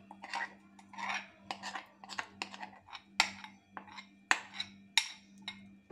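A metal spoon scraping and clinking against a bowl in a string of short strokes, about two a second, as thick semolina dhokla batter is scraped out into a greased tin. A low steady hum runs underneath.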